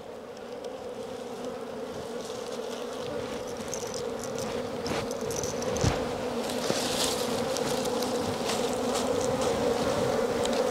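A swarm of small wild ground-nesting bees (ong ruồi đất) buzzing in a steady hum that grows gradually louder as smoke from a straw fire is fanned into their nest entrance. Scattered light clicks and rustles of dry straw being handled run beneath it.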